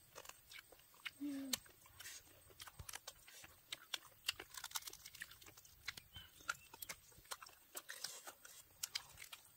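A person chewing roasted pork with open-mouth smacking: a string of quick, wet clicks, with a short hum about a second in.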